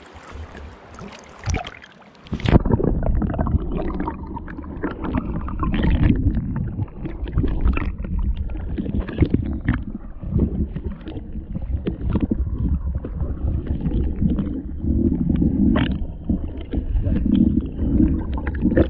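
Hiss of stream water, then about two and a half seconds in the GoPro goes under the surface. From there the sound is a muffled low rumble of water moving around the submerged camera, with many small knocks and bumps against it.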